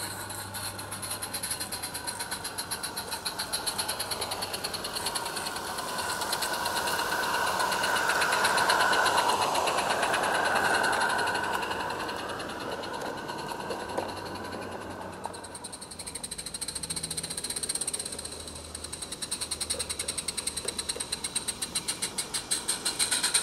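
Small live-steam garden railway locomotive chuffing rapidly as it hauls passenger coaches. The sound swells as the train passes close by and fades away, and a new run of quick chuffs builds near the end.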